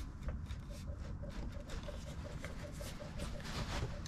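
An adjustable wrench working the rusted tie-rod nut on a hay wagon's steering, making scattered light metal clicks over a steady low rumble.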